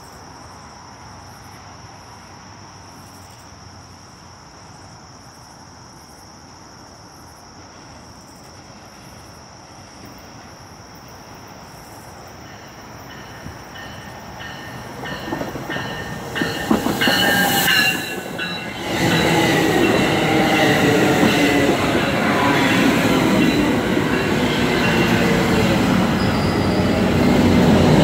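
Crickets chirring steadily. From about halfway, an exo commuter train with bi-level coaches grows loud as it arrives at the station platform. It then runs alongside with a heavy rolling rumble and high wheel squeals.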